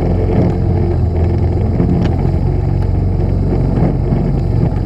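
Gas walk-behind push mower's small engine running steadily while cutting grass.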